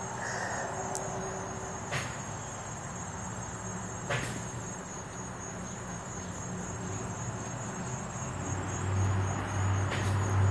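Small scissors snipping open a ball python eggshell, heard as a few sharp clicks several seconds apart. Under them runs a steady high-pitched insect trill, and a low hum comes in near the end.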